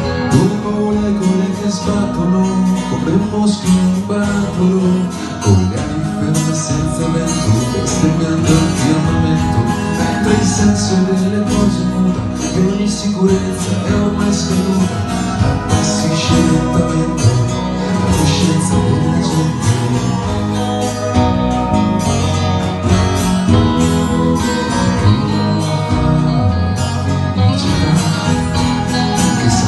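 Live acoustic band playing an instrumental passage of a rock song: strummed acoustic guitar and electric guitar over steady cajón beats.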